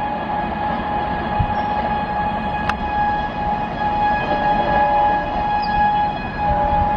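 An AC double-decker express train rolling away on the rails: a steady rumble of wheels and coaches with sustained high tones ringing over it, and one sharp click about three seconds in.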